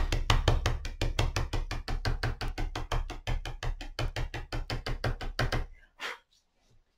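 Oil pastel tapped quickly onto watercolour paper on a board, dabbing wax resist dots: an even run of taps, about six a second, that stops about six seconds in.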